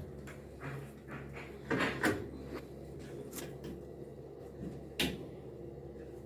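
A few knocks and clicks of parts being handled while an LG washing machine is taken apart: a pair about two seconds in, a sharp click near the middle and another about five seconds in.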